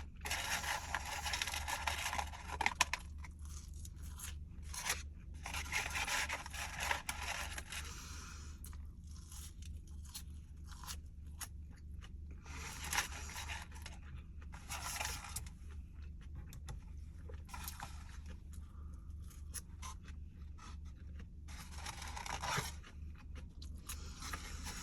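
Close-miked eating of McDonald's food: irregular bursts of crunching and crinkling or scraping, some a second or two long, others brief, over a steady low hum.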